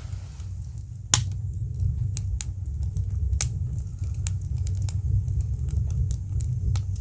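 Wood fire crackling: scattered sharp pops and snaps over a steady low rumble, with one louder snap about a second in.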